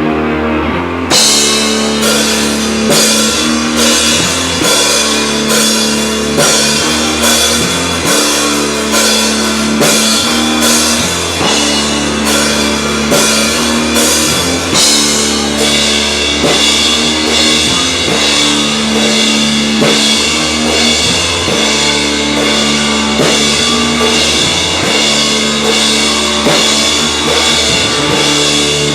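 A rock band playing live: sustained electric guitar and bass, with the drum kit coming in about a second in and keeping a steady beat with cymbals.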